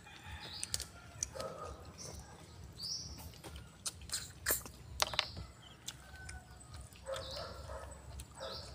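Chickens clucking and birds chirping every so often, over scattered short clicks and slurps of people eating snails by hand.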